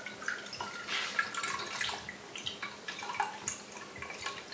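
Tamari soy sauce pouring from a bottle into a stainless steel measuring cup, dripping and splashing in irregular spurts with short pitched gurgles.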